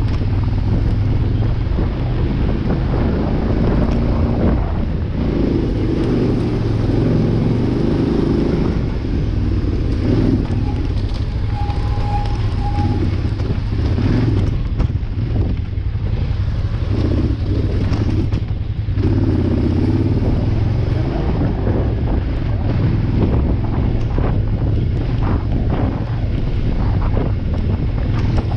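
On-board sound of an adventure motorcycle riding a dirt forest road: the engine runs steadily, its pitch shifting with the throttle, with wind buffeting the microphone and scattered knocks from the rough surface.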